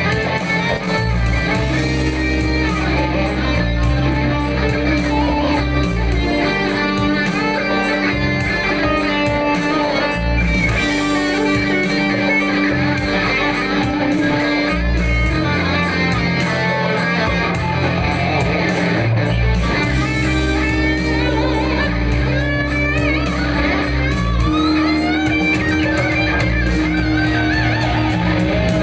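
Amplified electric guitar playing an improvised lead line, with string bends and vibrato, over a backing of sustained bass notes that change every few seconds.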